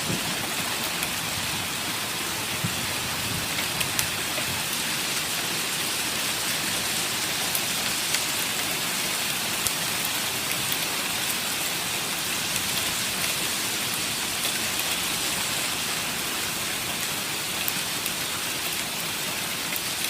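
Hail and rain pelting down steadily: a dense hiss of falling precipitation with many scattered sharp ticks of hailstones striking hard surfaces.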